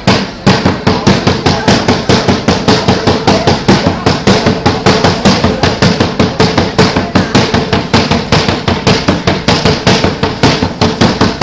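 Loud, fast, even percussion beat from a cheer squad's drums, about five hits a second without a break.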